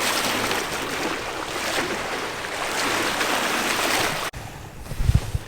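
Water rushing and splashing along a sailboat's hull. It cuts off abruptly about four seconds in, giving way to a quieter hiss with a few low wind thumps on the microphone.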